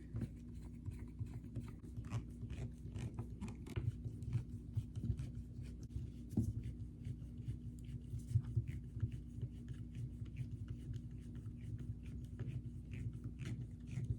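Hand Torx screwdriver turning machine screws into a plastic impact-driver housing: a string of small, irregular clicks and scratches over a steady low hum.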